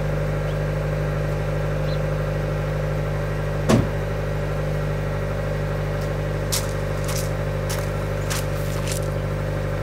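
Second-generation (NB) Mazda MX-5 Miata four-cylinder engine idling steadily through its single-tip exhaust, still warming up after a cold start. A single sharp knock sounds about a third of the way in, and footsteps crunch on gravel near the end.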